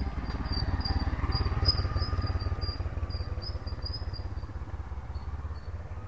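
A small motorcycle passes close by, its engine getting louder and then fading over a few seconds. Behind it an insect keeps up a high chirp, about three times a second.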